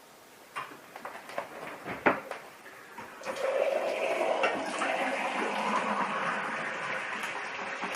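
A few clicks and knocks, then water starts running steadily about three seconds in.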